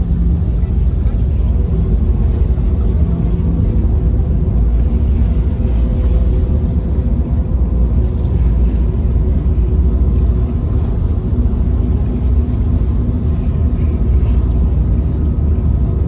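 Passenger ferry's engine and hull rumbling steadily while under way, with a faint steady hum above the rumble.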